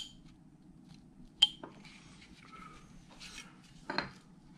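Carving knife cutting small wedges from a wooden figure: a few sharp clicks as the blade snaps through the wood, the loudest about a second and a half in, with soft scraping between.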